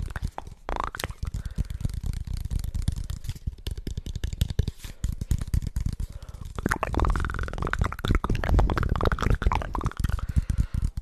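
Close-miked ASMR mouth sounds: rapid wet clicks, smacks and squelches of tongue and lips, growing busier about seven seconds in with some sliding, gurgling tones.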